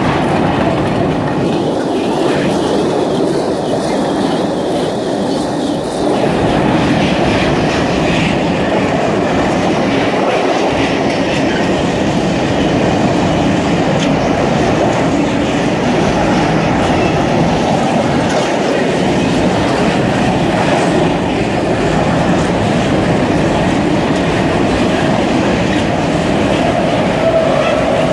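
Freight train tank wagons rolling past close by: a loud, steady rumble and clatter of steel wheels on the rails. A higher, wavering sound rides over it for the first six seconds and then stops.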